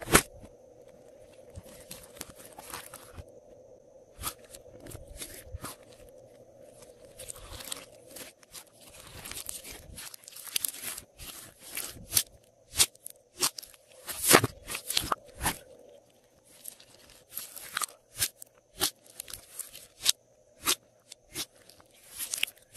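Hands pressing and poking glossy slime on a tabletop, making sharp wet pops and clicks at irregular intervals as air pockets in the slime burst. The loudest pop comes about fourteen seconds in.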